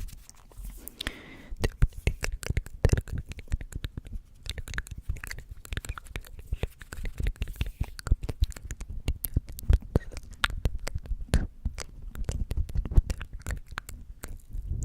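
Close-miked ASMR trigger sounds: rapid, irregular clicks, taps and crackles right at the microphone.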